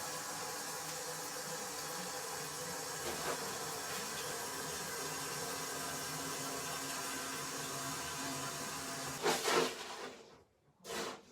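A steady hiss, then two short, louder rushes of noise near the end.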